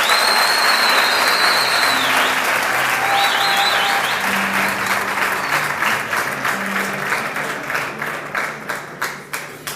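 Audience applauding, a dense clapping that thins out and dies away near the end, with a few high whistles in the first seconds.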